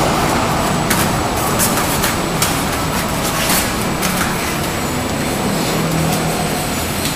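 Steady rushing noise with a few short, faint knocks scattered through.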